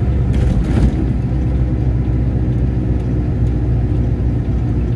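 Diesel truck's engine and tyres heard from inside the cab while driving, a steady low rumble, with a brief rush of noise about half a second in.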